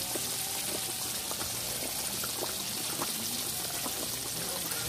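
Whiting fillets deep-frying in a pan of hot oil: a steady sizzle with many small scattered pops and crackles as the oil bubbles hard around the fish.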